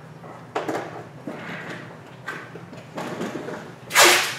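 Off-camera rummaging among stored hobby boxes: a series of separate knocks and scrapes, with a loud slam about four seconds in.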